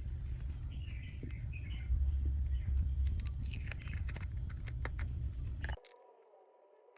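Outdoor ambience: a heavy low rumble like wind on the microphone, with bird-like chirps and a few sharp clicks. It cuts off suddenly near the end to a much quieter stretch with a faint steady hum.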